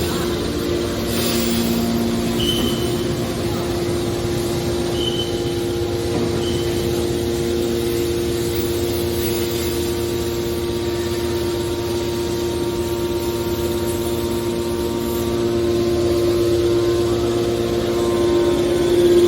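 Hydraulic metal baler running: a steady mechanical hum with a constant whine, and a few brief high squeaks in the first seconds.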